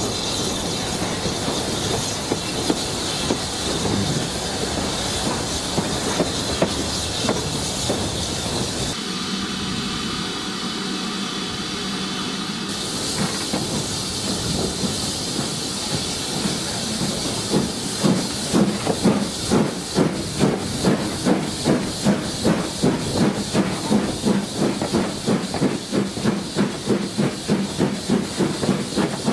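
BR Standard Class 4 2-6-4 tank steam locomotive running along the line, with steam hiss and rail clatter. About two-thirds of the way in its exhaust beats come through loud and sharp in a quick, even rhythm.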